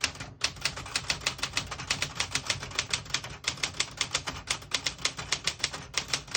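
Smith-Corona Galaxie Deluxe manual portable typewriter being typed on at a steady pace: a quick run of sharp key strikes, about seven a second, with a brief pause about three seconds in.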